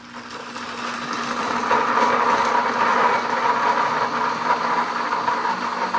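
Pampered Chef cooking blender running on a custom blend, blending frozen margaritas. The motor starts low and climbs in speed and loudness over the first couple of seconds, as the blend goes from level one up toward level nine, then runs steadily with a whine.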